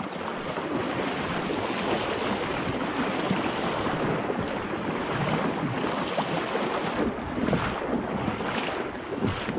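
Steady rushing of moving river water, mixed with wind noise on the microphone, with a few sharper splashy sounds near the end.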